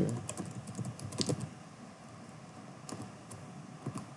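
Typing on a computer keyboard: a quick run of keystrokes in the first second and a half, then a few scattered key presses, as a spreadsheet formula is entered.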